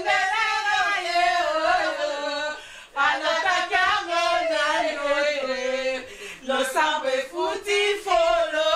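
Women singing together unaccompanied, in long held phrases with short breaks about three and six seconds in.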